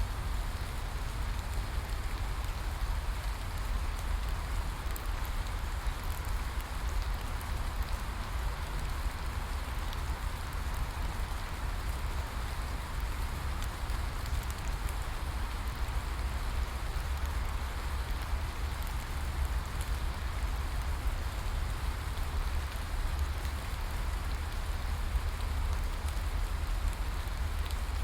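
Steady rain falling in a rainforest, an even patter of many small drops with a constant low rumble beneath it.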